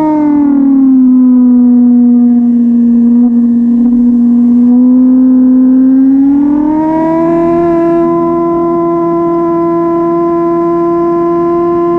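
1999 Suzuki GSX-R 750 SRAD's inline-four engine running at high revs. Its pitch drops a little in the first second and holds steady, then climbs smoothly about six to seven seconds in and holds high to the end.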